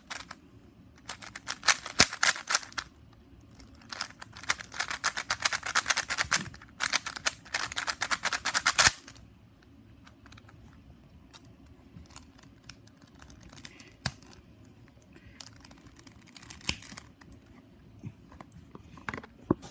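Plastic speed cube being turned fast by hand: rapid clattering clicks of the layers snapping round. Dense runs of turning for the first nine seconds or so, then only scattered single turns.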